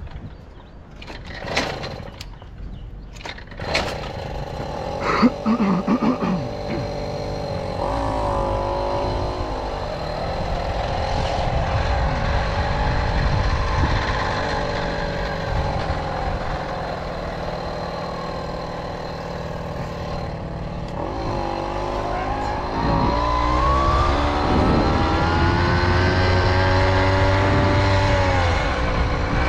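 Tomos Silver Bullet moped's small engine running, after a few sharp clicks and knocks in the first seconds. The engine note steadies about eight seconds in, then climbs in pitch past twenty seconds as the moped speeds up and holds there.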